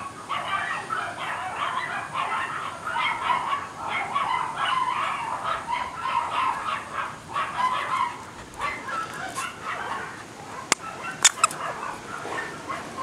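Yellow Labrador puppy vocalizing in a rapid run of short sounds while tugging a pom-pom toy on a string, stopping about nine and a half seconds in. A few sharp clicks follow near the end.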